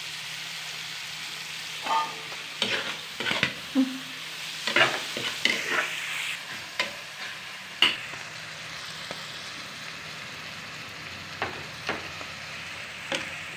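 Shelled mussels sizzling steadily as they fry in a nonstick pan, with a metal spoon scraping and clacking against the pan as they are stirred, mostly through the first half and again in a few strokes near the end.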